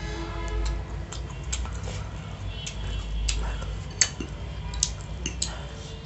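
Metal fork clinking and scraping against a ceramic plate as fusilli pasta is scooped up, a string of sharp clicks with the loudest about four seconds in, over steady chewing.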